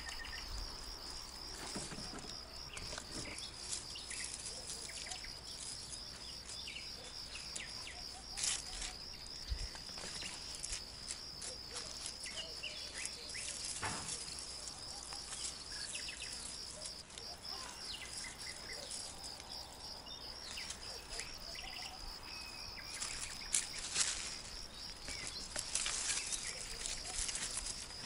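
Insects chirping in a continuous high, rapidly pulsing trill across an open summer field, with a few short clicks and rustles of plants being handled and faint bird chirps.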